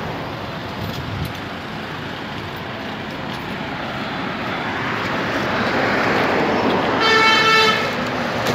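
Street traffic noise growing steadily louder, with a vehicle horn sounding once, for under a second, near the end.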